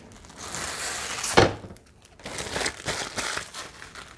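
Plastic packaging crinkling and rustling as it is pulled out of a PC case, with one sharp knock about a second and a half in.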